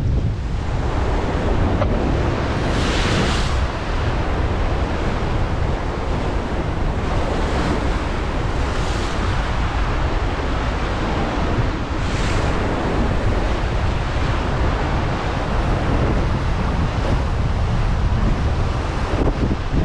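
Rough ocean surf breaking and washing against a rocky shore, with wind buffeting the microphone. The noise is continuous, with a few louder wave surges about 3, 9 and 12 seconds in.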